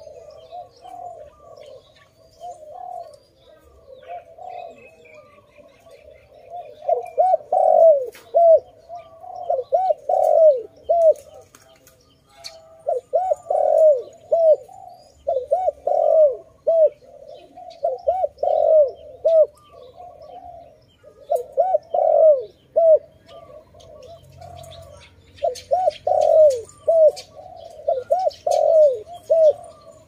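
Spotted dove cooing in short repeated phrases of rolling coos, a few seconds apart, soft at first and much louder from about seven seconds in.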